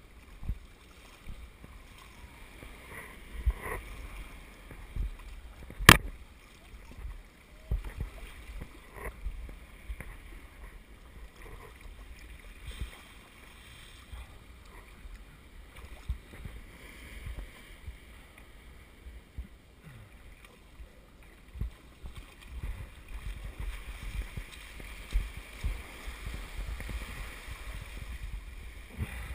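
Water lapping and sloshing against the hulls of a Hobie Wave beach catamaran in the shallows, with irregular low thumps. One sharp knock about six seconds in is the loudest sound.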